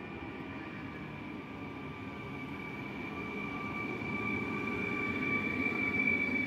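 Stadler FLIRT (ER160) electric multiple unit moving past close by: a steady high whine with a weaker lower tone beneath it, over a low rumble, growing louder as the cab end draws near.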